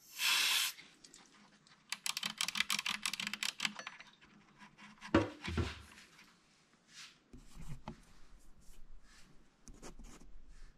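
A short hiss of aerosol electronics cleaner sprayed through its straw into an amplifier potentiometer to clean it. A couple of seconds of rapid small clicks follow, then a single knock a little after halfway as the can is set down on the bench, and faint handling noises.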